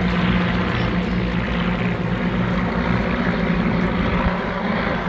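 A formation of single-engine propeller warbirds passing overhead, their piston engines droning steadily together.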